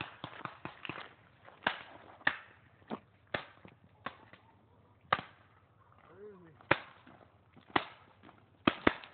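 Paintball markers firing single shots at irregular intervals: about ten sharp pops, some loud and some fainter, with a quick double shot near the end.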